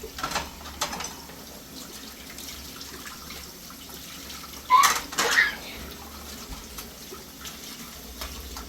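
Water running steadily, as from a tap, with two light knocks in the first second and a short, louder sound about five seconds in.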